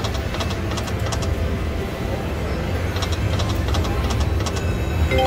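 Konami Dragon Emblem video slot machine spinning its reels, with runs of quick, sharp clicking ticks twice as the reels spin and stop, over a steady low rumble.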